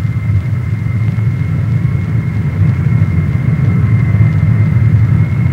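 C-5 Galaxy's jet engines running in flight: a low rumble with a steady high whine over it, slowly growing louder.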